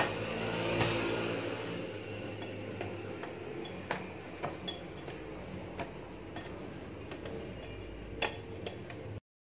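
Electric hand mixer running steadily as its beaters whip chantilly powder, strawberry juice and milk, the beaters clicking irregularly against the glass bowl. The sound cuts off abruptly near the end.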